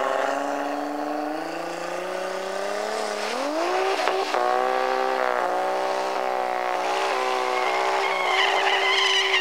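Toyota Mark II station wagon doing a burnout to heat its rear tyres before a drag launch: the engine runs at moderate revs, rises sharply about three seconds in and is held high with small dips while the rear wheels spin. A high tyre squeal joins near the end as the tyres start to smoke.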